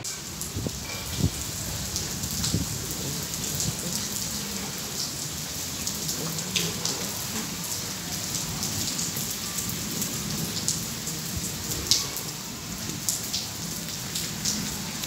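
Heavy rain falling steadily: an even hiss of rain with frequent sharp taps of drops landing close by.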